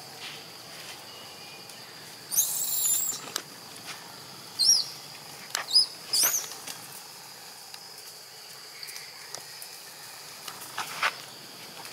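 A young macaque giving several short, high-pitched squeals that rise and fall in pitch, between about two and seven seconds in, over a steady high insect drone. A couple of sharp snaps near the end.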